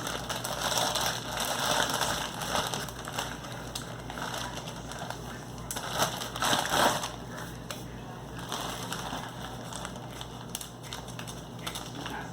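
Crunchy cheese-flavoured corn rings being chewed close to the microphone, an irregular crunching and crackling that gets louder about six to seven seconds in.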